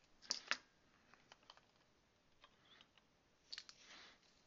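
Faint clicks and taps of a soldering iron and copper solder braid worked against a clamped circuit board: two sharper clicks just after the start, a few light ticks, and a quick cluster of clicks about three and a half seconds in, followed by a brief soft hiss.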